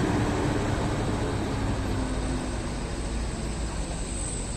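Large intercity bus's diesel engine running with a steady low rumble, slowly getting quieter.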